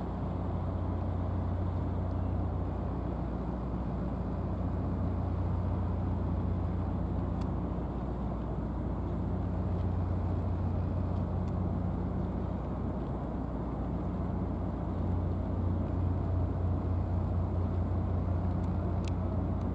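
Steady low engine drone, a deep hum with a second tone above it, growing a little louder and more pulsing in the last few seconds, with a few faint clicks.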